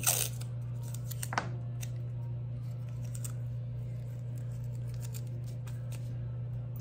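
Blue painter's tape pulled from the roll and torn: a loud rip right at the start and a shorter one about a second and a half in, then faint crinkles as pieces are handled and pressed down, over a steady low hum.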